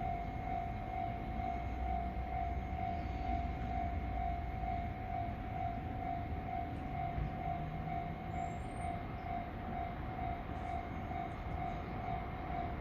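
Japanese railway level crossing's warning bell ringing over and over in a quick, even rhythm, signalling that the crossing is closed for an approaching train. A low rumble runs underneath.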